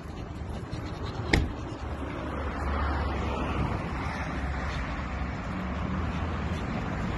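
Street traffic noise with a vehicle passing, rising from about two and a half seconds in, and a single sharp knock about a second in.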